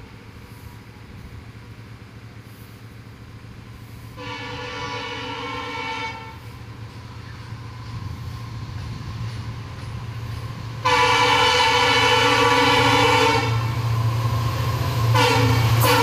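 EMD WDG-4 diesel locomotive approaching, its two-stroke V16 engine rumbling louder as it nears. It sounds its multi-tone air horn three times: a two-second blast about four seconds in, a longer, louder blast at about eleven seconds, and another starting just before the end.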